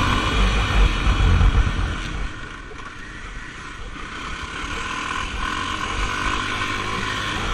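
Off-road vehicle engine running under throttle, easing off about two seconds in and then building back up steadily, with heavy low rumble.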